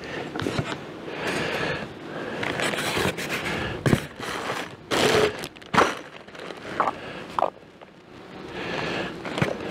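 Polystyrene foam insulating panels being handled and fitted onto a wooden beehive top: foam scraping and rubbing against wood, with a few sharp knocks around the middle and two short squeaks a little later.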